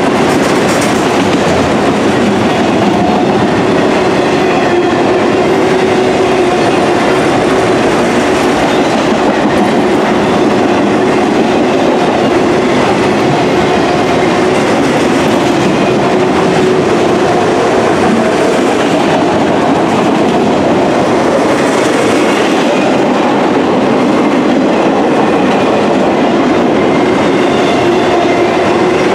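Autorack freight cars rolling past close by: the steady noise of steel wheels running on the rails, even in loudness throughout.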